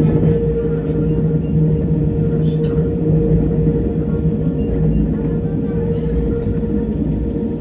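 Tram running at a steady speed, heard from inside the car: a continuous low rumble with a steady, even-pitched hum over it.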